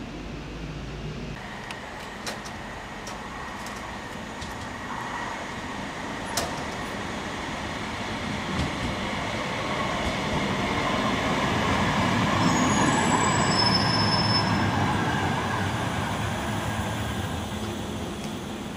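Manchester Metrolink Bombardier Flexity Swift tram approaching along the track and running past, its rolling noise swelling to a peak in the second half and then easing off. A faint steady high whine is heard through the first half, with a few sharp clicks.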